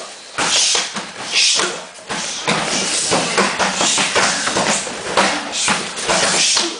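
Punches and kicks landing on hand-held kick pads, several pairs striking at once in an irregular run of thuds, with bursts of hissing breath or scuffing between them, echoing off a curved concrete vault.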